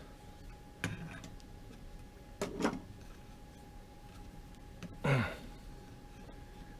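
Scattered handling sounds of fitting a bench grinder part back in with pliers: a few short clicks and knocks about a second in, about two and a half seconds in, and about five seconds in, over a faint steady hum.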